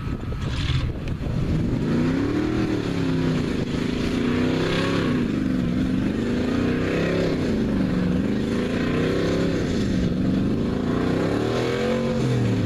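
Street stock Chevrolet pickup's engine revving up and down over and over, roughly every second or two, as the truck pushes slowly through deep mud in a mud bog pit.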